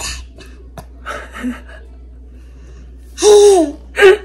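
A toddler's happy squeal while laughing: one loud, high call about three seconds in that falls in pitch at its end, then a short second one near the end, after some quieter breathy sounds.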